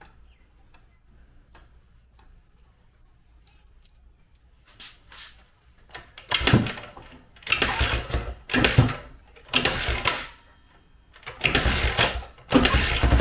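A rebuilt 2004 Honda CRF80 four-stroke single-cylinder dirt bike engine is kicked over several times from about halfway in, firing in short bursts with quiet gaps between. Near the end it catches and runs steadily. It is run with the head's oil check bolt loosened to confirm that oil is flowing up to the head after the rebuild.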